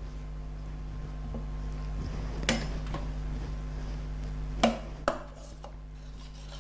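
A metal slotted spoon clinks against the pot and the serving platter as potatoes are lifted out: three sharp clinks, about two and a half, four and a half and five seconds in, over a steady low hum.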